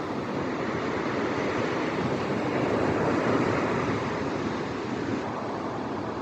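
Ocean surf washing onto the beach, a steady rush of small breaking waves that swells about halfway through and then eases.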